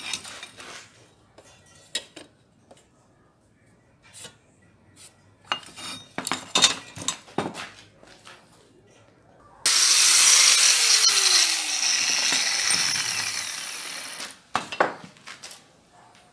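Light knocks and clicks of a steel square tube and marking tools being handled. About ten seconds in, a power tool cuts into the 20×20 mm steel square tube for about five seconds: a loud, steady cutting noise with a falling tone, which starts and stops abruptly.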